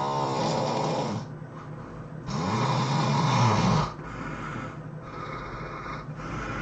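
A person snoring heavily: one loud buzzing snore fades about a second in, then a second, louder snore runs from about two and a half to four seconds in, followed by softer breathing.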